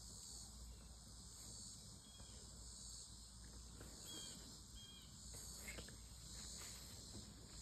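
Faint insect chorus: a steady high-pitched trilling that swells about once a second.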